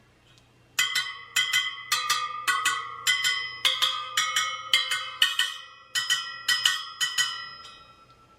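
Spokes of a Sur Ron Light Bee motorcycle front wheel being pinged one after another, about three a second, each giving a short bell-like ring whose pitch shifts a little from spoke to spoke. This is a tension check by ear: a spoke that sounds dead is loose and gets tightened.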